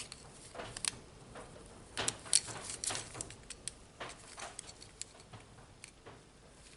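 Faint, scattered small clicks and scrapes of wire terminals being worked off the old switch inside a Makita DHR202 cordless rotary hammer drill.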